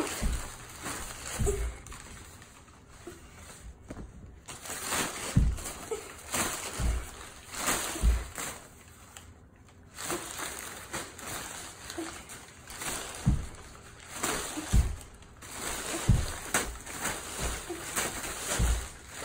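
Large brown paper bag rustling and crinkling in repeated bursts as it is swished and dragged across the floor, with scattered soft thumps.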